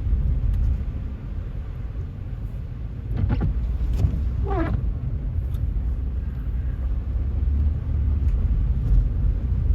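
Steady low rumble of a car driving, with two short wavering pitched cries about three and four and a half seconds in.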